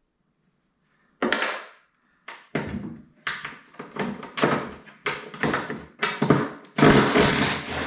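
Cordless impact driver hammering in a string of short bursts, roughly one every half second or so, with a longer run near the end, as it backs T40 Torx screws out of a snowmobile's aluminium tunnel.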